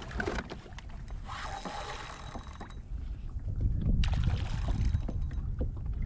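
Wind buffeting the microphone on a small boat on the water, with two stretches of hissing and scattered light knocks and clicks.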